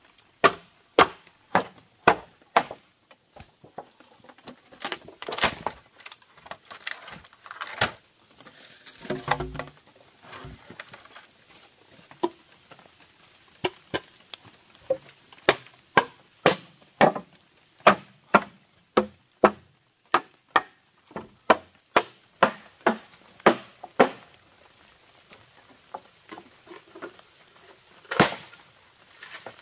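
Repeated sharp chopping strikes on wood, about one to two a second, with a short pause near the end before one more hard strike. About nine seconds in there is a brief crunching, splintering stretch.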